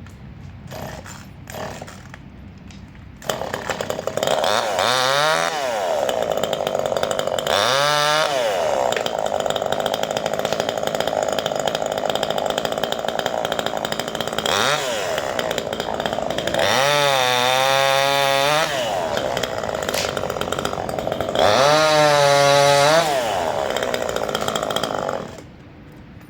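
Chainsaw comes in abruptly a few seconds in and runs hard, its pitch dropping and climbing again several times as it is revved and loaded while cutting pine branches. It stops abruptly shortly before the end.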